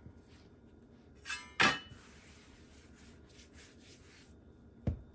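Hands working dough on a floured silicone pastry mat: a short metallic clink and a sharp knock about a second and a half in as the metal bench scraper is moved, then a soft rubbing as flour is spread across the mat, and a dull thump near the end.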